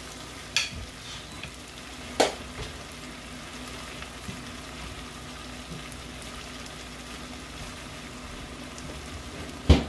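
Corned beef frying gently in a pan over a low fire, a steady soft sizzle as it is stirred. A few sharp knocks break in, the loudest near the end.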